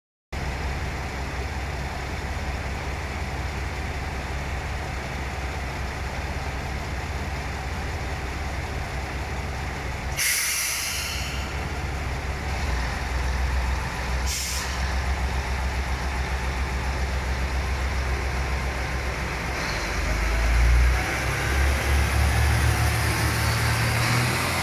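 JR Shikoku 1500 series diesel railcar running with a steady low engine hum, with two short hisses of air from the brakes about ten and fourteen seconds in. Near the end the engine note swells and rises as the train pulls out.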